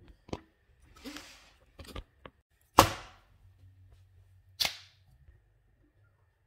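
A few sharp knocks and clacks of kitchen work on a cutting board, the loudest about three seconds in with a short ring after it, and a brief rustle about a second in.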